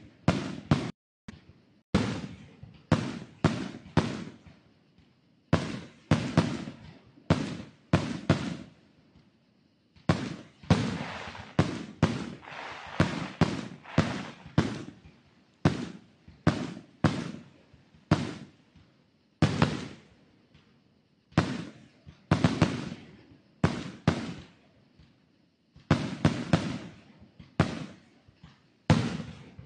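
Fireworks display: shells bursting in quick, irregular succession, loud sharp bangs each trailing off in an echo, with a denser run of rapid crackling pops about ten seconds in.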